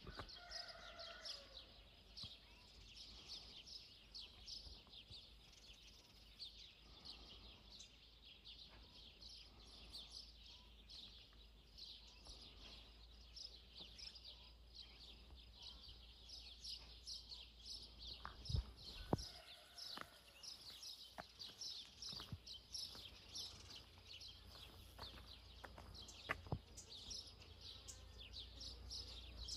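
Faint, continuous chirping of many small birds in the open, with a few scattered sharp knocks.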